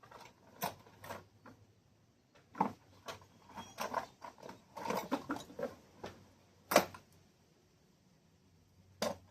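Metal sockets and hand tools clinking and knocking in an irregular run of clicks, as tools are handled and sorted, with a sharper click about two thirds of the way through.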